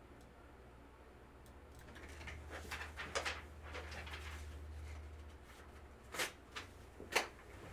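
Trading-card box and wrappers being handled and opened: a few seconds of rustling and crinkling, then three sharp clicks or taps near the end.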